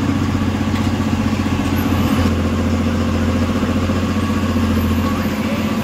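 MSRTC bus's diesel engine running steadily, with an even drone that holds its pitch.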